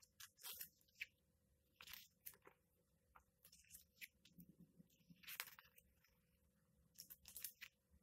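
Pages of a large hardcover comic book being turned by hand: faint, brief paper rustles and swishes, a handful of times, with a faint steady hum underneath.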